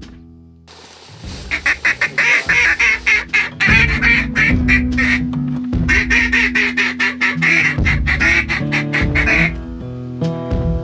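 Ducks quacking in rapid strings, the loudest about a second and a half in and again from about six seconds in, over background music.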